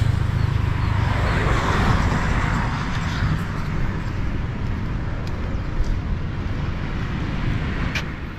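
Road traffic going by: the low rumble of a passing vehicle eases over the first couple of seconds, leaving a steady traffic noise, with one short click near the end.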